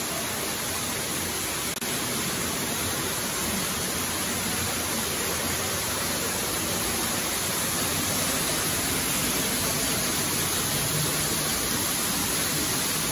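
Steady, even rushing of water from an indoor waterfall pouring down an artificial rock wall.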